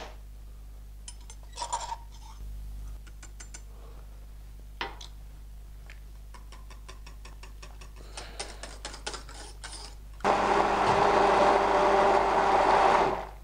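A whisk beats quickly against a stainless steel saucepan of glaze, then a hand blender starts about ten seconds in and runs steadily for about three seconds before stopping, the loudest sound here, blending powdered colouring into the glaze until it dissolves.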